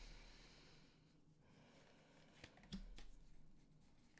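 Near silence: room tone with a couple of faint soft taps and rustles about two and a half to three seconds in, from tarot cards being handled and laid out.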